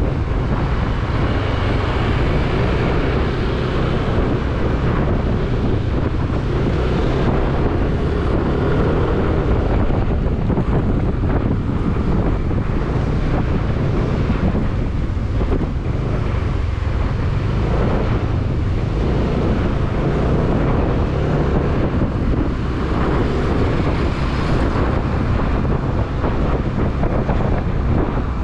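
Wind buffeting the microphone of an action camera on a moving motorcycle, a steady low rumble, with the motorcycle's engine running underneath.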